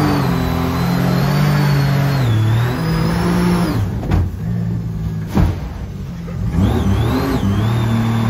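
Small jet boat's engine revving up and down under throttle, easing off a few seconds in with two sharp knocks, then picking back up and holding a steady pitch.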